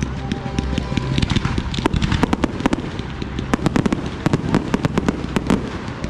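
Aerial fireworks going off in a dense, rapid barrage: many sharp bangs and crackles overlapping, several a second, over a steady low rumble.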